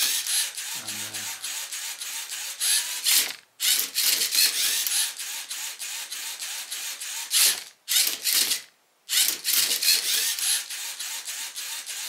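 LEGO Mindstorms NXT servo motors driving the Mindcuber robot's turntable, flipper arm and colour-sensor arm through plastic gears: a busy gear rattle and whir in bursts. It stops briefly about three and a half seconds in and twice around eight to nine seconds, as the robot turns the cube to scan each face.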